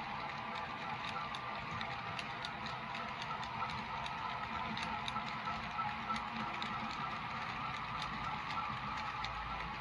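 OO gauge model freight train of box wagons rolling slowly along the track: a steady running hum with frequent light clicks of the wheels over the rail joints.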